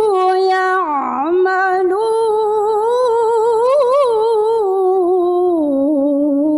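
A woman reciting the Quran in melodic tilawah style, drawing out the closing word of a verse in one long, unbroken melismatic line with vibrato and ornamental turns. Her pitch dips and recovers about a second in and steps down lower near the end.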